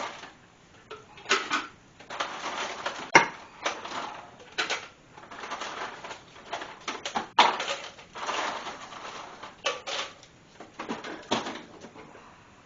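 Close-up chewing and mouth noises of someone eating ham, coming in irregular bursts, with a few sharp clicks.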